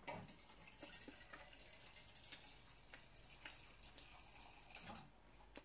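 Near silence: room tone with a few faint scattered clicks and light handling noises.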